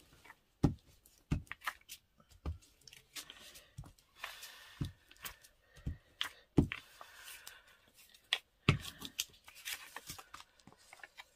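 Paper being handled and rustled while pieces of paper are glued together to stiffen them, with a string of sharp taps and clicks against the work surface and a few short scraping rustles.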